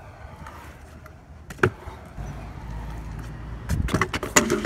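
Stunt scooter wheels rolling on concrete, with one sharp clack a little over a second in, then a burst of loud clattering knocks near the end as the scooter hits the ramp during a trick.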